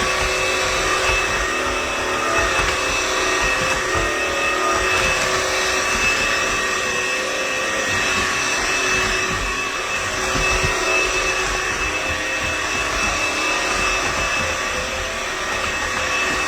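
Cordless wet-dry vacuum mop running steadily as it mops a hard floor: a constant motor whine with a few steady tones over the rush of suction and the spinning roller brush.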